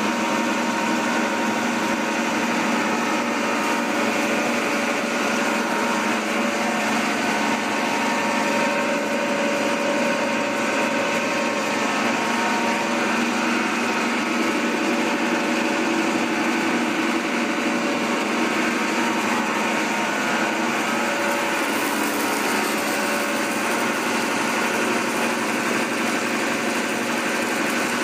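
Twin-screw extruder on a bread crumb line and its electric drive motors running: a steady mechanical hum with several held whining tones.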